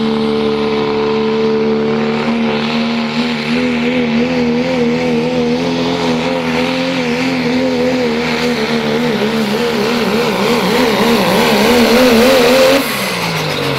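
Diesel engine of a Ford pickup pulling a sled at full throttle, held at high revs. From a couple of seconds in its pitch wavers up and down, more widely as the pull goes on, then drops sharply near the end as the throttle is released.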